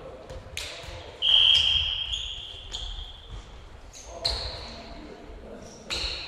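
A referee's whistle blown once, a loud shrill steady tone that echoes round a sports hall and fades over a couple of seconds. Voices and short knocks of a volleyball bouncing on the wooden floor go on around it.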